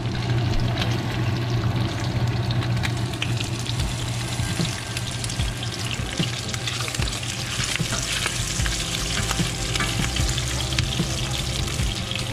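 Strips of bacon sizzling and crackling in rendered fat in a skillet while a spatula turns and lifts them, over a steady low hum.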